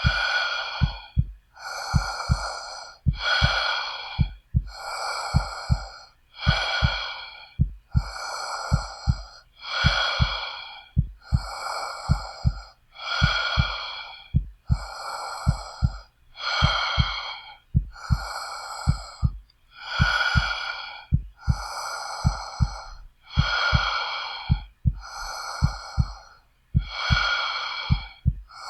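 Heavy, quick breathing, in and out, each breath about a second long, over a steady lub-dub heartbeat of low double thumps.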